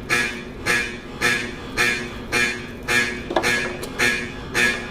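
School fire alarm horns sounding in short, evenly repeated blasts, a little under two a second, set off by a pulled fire alarm pull station.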